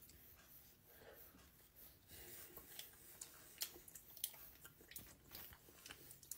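Faint close-up chewing of a mouthful of breakfast Hot Pocket: soft, irregular wet mouth clicks.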